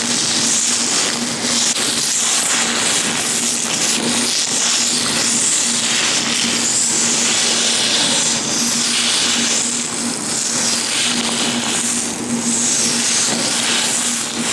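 Latex-gloved hands rubbing and handling right up against a microphone, a continuous dense rustling of rubber that swells and eases without a break.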